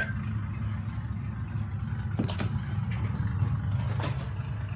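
Low steady hum with a few faint clicks, in a gap between spoken alert messages.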